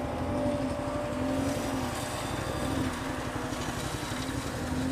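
Ducati Multistrada 1200's L-twin engine running at low revs while riding slowly, its pitch rising and falling slightly, with a light noise of air and road beneath it.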